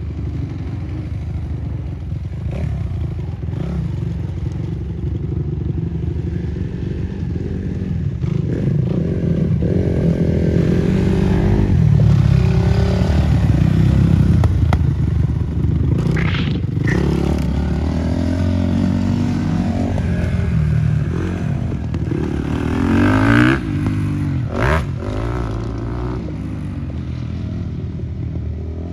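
Motocross dirt bike engines running on the track, the pitch rising and falling as the riders work the throttle. The engine gets louder about halfway through as a bike passes close, and a revving sweep comes near the end. Two sharp knocks break in, one past the middle and one near the end.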